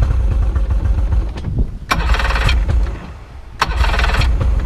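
Yamaha 70 hp two-stroke outboard turning over on its electric starter with the choke held on, in two runs of cranking: the first stops about three seconds in, and the second starts about half a second later. It is being cranked to draw the last fuel out of the fuel system.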